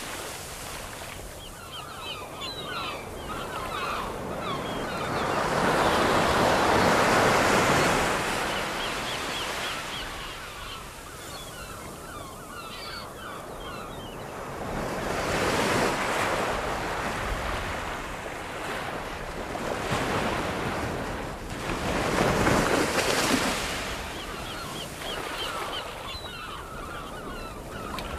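Ocean surf sound effect: waves washing in and falling back in slow swells every few seconds, with faint short high chirps over them and no music.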